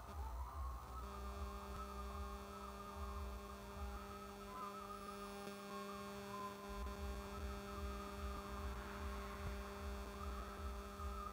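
Steady electrical mains hum with a buzz of many overtones, coming in about a second in, over a low uneven throbbing rumble that drops out briefly in the middle.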